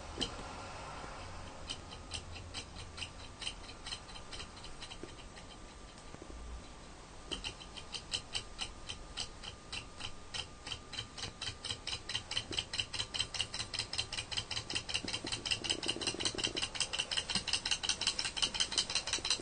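Small alcohol-fired thermoacoustic engine model started with a flick of its flywheel, then running with an even ticking from its piston and linkage once a turn. The ticks grow louder about seven seconds in and come faster as it gathers speed, to about five a second near the end.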